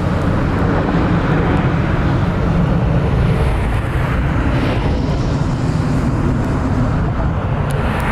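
Steady low rumble of airport noise across the apron, even throughout with no single event standing out.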